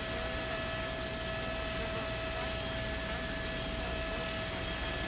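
Steady hiss with a low hum and several constant steady tones, unchanging throughout: background noise on the audio feed, with no distinct event.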